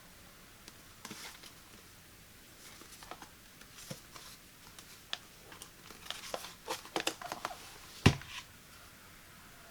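Product packaging being handled and opened by hand: scattered crinkles, taps and scrapes that grow busier after about five seconds, with one sharper thump about eight seconds in.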